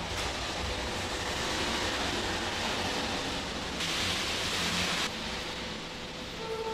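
Steady fan noise of running kitchen equipment with a faint steady hum underneath; a louder hiss comes in for about a second around four seconds in.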